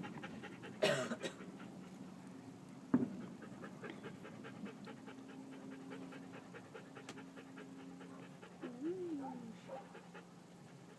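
A dog panting rapidly, about four breaths a second, with two sharp thumps about one and three seconds in.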